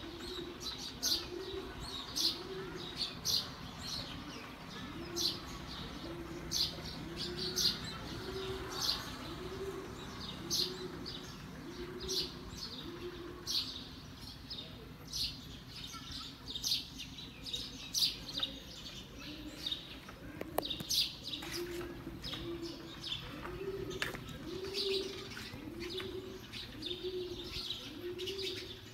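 A bird calls a long series of low, evenly spaced hooting coos, each note rising and falling, about one and a half a second, with a pause of several seconds midway. Small birds chirp in short, sharp, high notes throughout.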